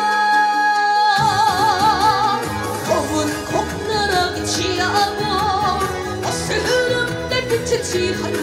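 A boy singing a Korean trot song live into a handheld microphone over instrumental accompaniment. He holds a long note that breaks into vibrato about a second in, as the bass and drums come in.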